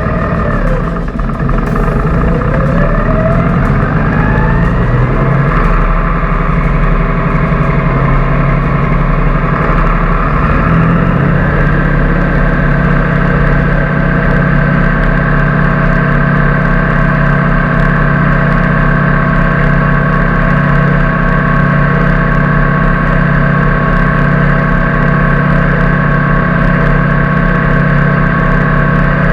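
Tractor engine and drivetrain pulling away, a whine rising in pitch over the first few seconds, then running steadily at speed with a constant high whine.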